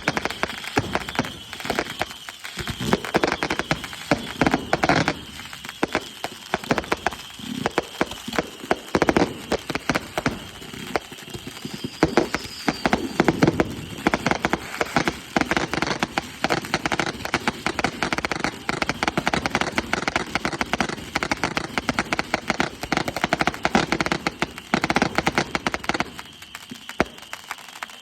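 Consumer fireworks crackling in a dense, rapid stream of pops that thins out near the end.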